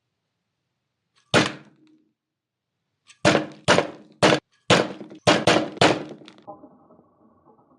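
A 600-gram brass drop weight falling onto lead air-gun pellets in a crush-test rig. One sharp metallic impact comes first, then a quick run of about seven more, each ringing briefly.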